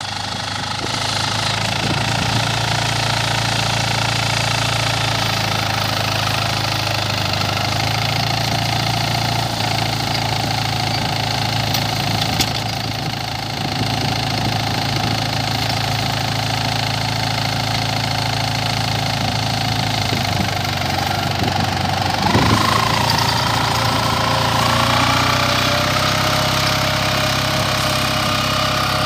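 Captain mini tractor's diesel engine running steadily, then speeding up with a rise in pitch about two-thirds of the way through and holding at the higher speed.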